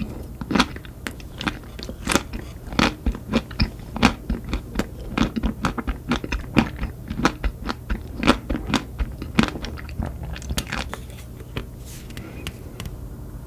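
A person biting and chewing crunchy food, with many crisp crunches in quick, irregular succession that thin out near the end.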